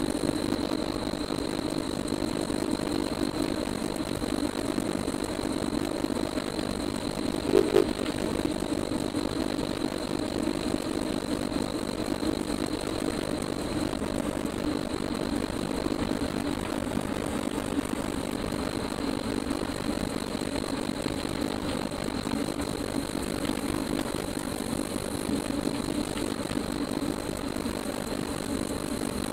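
Steady mechanical whirring drone from an indoor cycling setup under a rider pedalling, with two short beeps about seven and a half seconds in.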